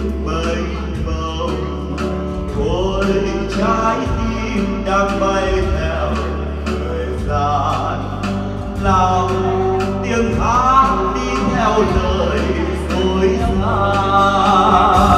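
A man sings a Vietnamese ballad into a microphone, backed by a small live band with acoustic guitar.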